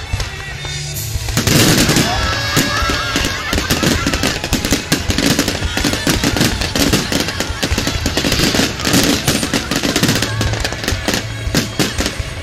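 Aerial fireworks barrage: a rapid, dense string of bangs and crackles from bursting shells, starting about a second and a half in and carrying on without a break.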